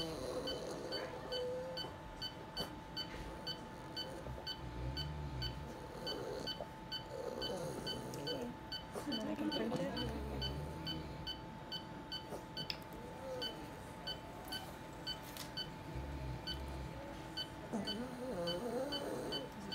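Veterinary patient monitor giving a short high beep with each heartbeat of a dog on ECG, a little over two beeps a second, in time with a heart rate of about 140 a minute. The beeps stop briefly about two-thirds of the way in, then resume.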